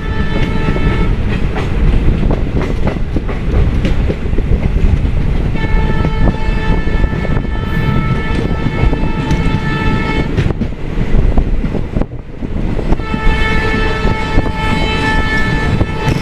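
Train running along the track with a steady rumble and rattling wheel clicks, while its horn sounds in long blasts: one ending about a second in, one lasting about four seconds in the middle, and another starting a few seconds before the end.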